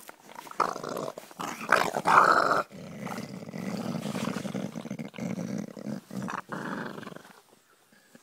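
American Staffordshire terrier growling: a long, rough growl starting under a second in, broken by a few short pauses, loudest about two seconds in and dying away just before the end.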